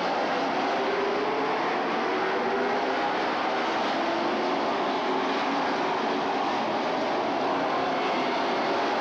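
A pack of stock cars racing on an oval, their V8 engines running together at speed in a steady drone, with several engine pitches wavering up and down.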